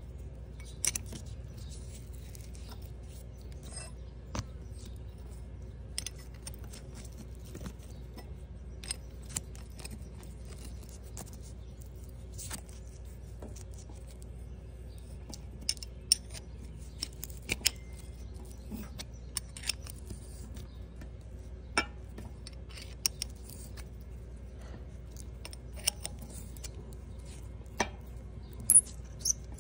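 Scattered metallic clicks and clinks of a wrench working the nut off a rusty cable-terminal stud on a 12,000-pound winch, irregular and thicker in the second half, over a steady low hum.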